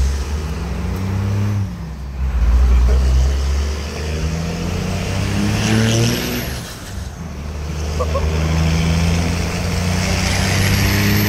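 1995 Dodge Ram's 12-valve Cummins turbo diesel accelerating hard, heard from inside the cab, on a 3,000–4,000 rpm governor spring kit with upgraded valve springs. The engine climbs in pitch and drops back at each gear change, about two and seven seconds in, and a high turbo whistle rises and falls as it spools.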